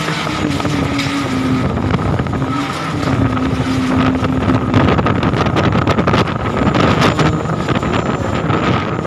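Strong gusting wind blowing hard and buffeting the microphone, growing louder about three seconds in.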